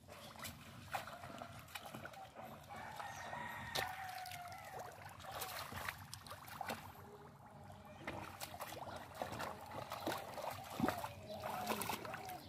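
Splashing and squelching of bare feet and hands in shallow muddy water, with short sharp splashes scattered throughout. Over it, birds call in rising and falling cries, mostly in the first half.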